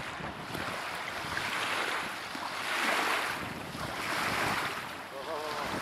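Wind on the microphone and water noise, swelling and fading in a few surges.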